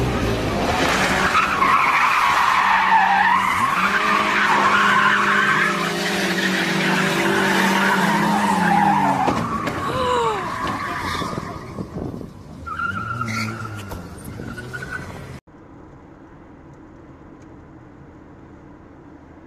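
A car's tyres squealing as it drifts, with its engine revving up and down, for about twelve seconds before fading. It cuts off suddenly, giving way to a steady, quieter hum of road noise heard from inside a moving car.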